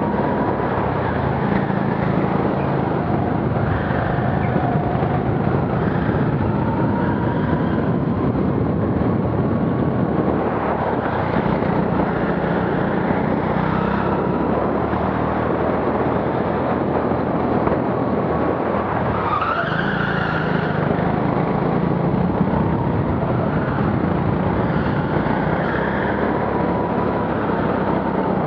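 Go-kart running at speed through a lap, a steady mechanical rumble with a thin steady tone, heard through a helmet-mounted camera. A brief higher squeal comes about two-thirds of the way through.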